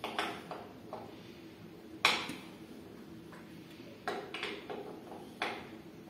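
Screwdriver and metal fittings of a ceiling fan clicking and knocking as the blade screws are tightened and the fan is handled. The sharpest knock comes about two seconds in, and a quick cluster of clicks follows a couple of seconds later.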